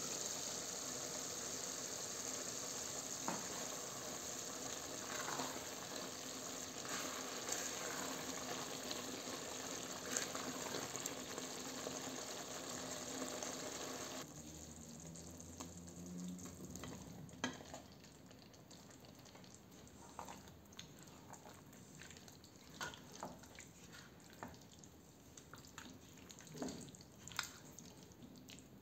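Tomato sauce bubbling hard in an open pot on the stove, a dense steady hiss that drops off suddenly about halfway. After that comes a quieter simmer with scattered light knocks of a spatula against the pot as potato cubes are stirred in.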